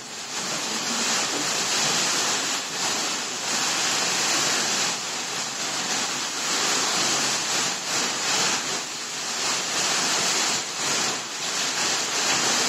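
Rushing, surf-like noise that swells and ebbs every second or two, like waves on a shore: a theatrical sea effect.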